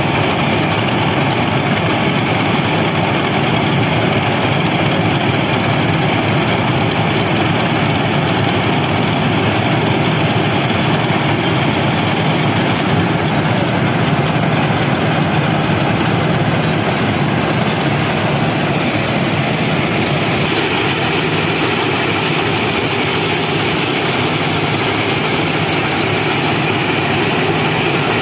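Indian Railways FRM-85F formation rehabilitation (ballast-cleaning) machine running close by: a steady, loud din of its diesel power units and screening machinery. A thin high whine joins about halfway through.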